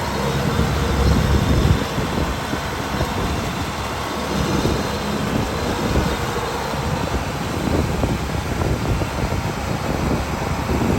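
Kubota DC-105X rice combine harvester's diesel engine running steadily as the machine drives off the road down into the paddy field; a little louder for the first two seconds, then even.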